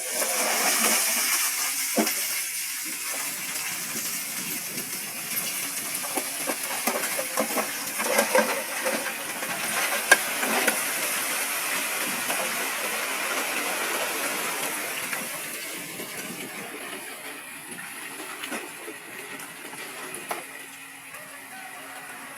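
Heavy earthmoving machinery working with stones: a steady hissing rush with scattered clattering knocks, the sharpest about 2, 8 and 10 seconds in, easing off after about 15 seconds.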